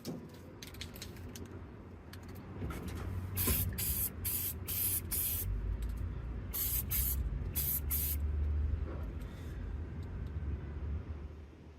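Aerosol spray-paint can spraying green paint onto an M1 helmet in a series of short hissing bursts, most of them between about three and eight seconds in, over a low rumble.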